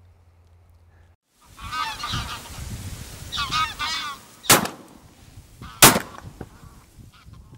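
A flock of wild geese honking, then two shotgun shots about a second and a half apart, the loudest sounds here, with fainter sounds trailing after.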